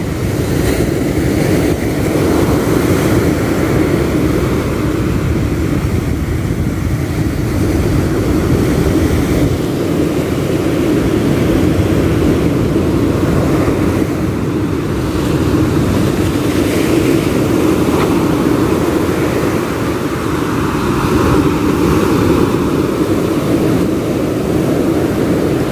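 Steady, loud rumble of wind buffeting the microphone over surf breaking on the beach.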